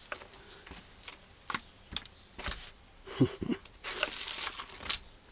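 Packaging being handled: irregular crinkling and rustling with scattered sharp clicks and taps.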